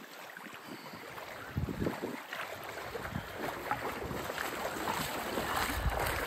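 Legs wading through shallow lake water toward the shore: irregular splashing and sloshing that grows louder as the wader comes closer, over small waves lapping and some wind on the microphone.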